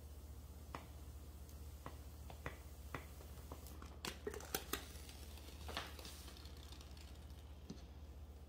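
A clothes iron is worked on a wet towel laid over a wood floor, giving sparse faint clicks. About four seconds in comes a cluster of louder clicks and knocks as the iron is lifted off, then a short scuffing rustle of the towel.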